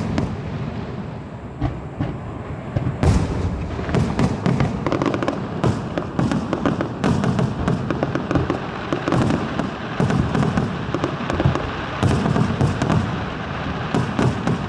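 Aerial fireworks going off in quick succession: many sharp bangs and crackles over low booms, without a break.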